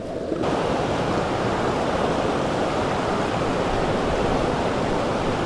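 Mountain stream water rushing, a steady dense wash that turns suddenly brighter and fuller about half a second in.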